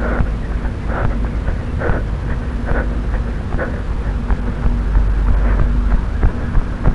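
Wind and handling rumble on a body-carried camera moving with a runner, with a soft knock about once a second in time with the stride.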